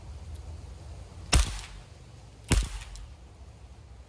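Webley & Scott MK VI .455 replica CO2 pellet revolver firing two .177 shots, one about a second and a half in and the next about a second later.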